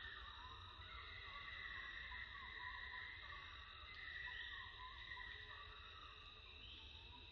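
Faint steady insect chorus, a high buzzing hum, with a few short, faint chirps now and then.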